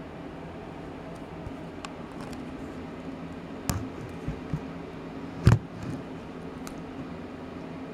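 A few soft knocks and one louder thump about five and a half seconds in, over a steady low hum: handling bumps as the camera is moved around the crib.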